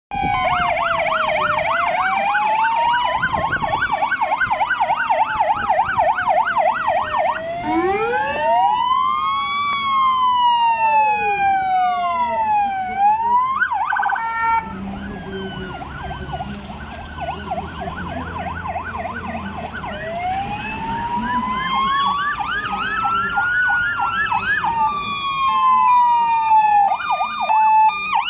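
Sirens of several fire engines sounding together: slow wailing sweeps overlapping fast yelps, with truck engines rumbling underneath. The sirens fall quieter about halfway through, then swell again near the end with rapid stepped tones.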